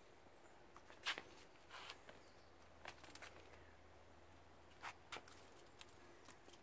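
Near silence broken by a few short scuffs and taps, the loudest about a second in and two more near five seconds: kittens' paws scrabbling and pouncing on a rug and concrete as they chase a feather toy.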